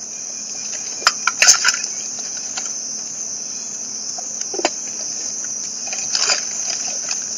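Steady, high-pitched drone of insects from the surrounding forest, with a few scattered clicks and ticks.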